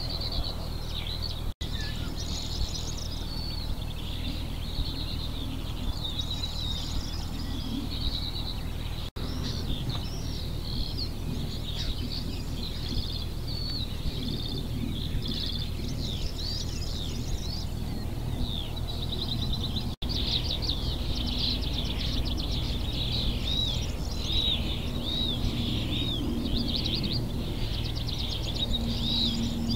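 Chorus of many songbirds singing at once, a dense mix of chirps and trills, over a steady low background rumble. The sound drops out for an instant three times.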